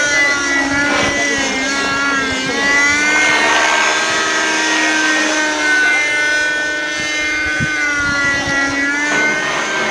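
Radio-controlled model helicopter flying overhead, its motor and rotor making a steady high whine that rises and falls a little in pitch as it manoeuvres.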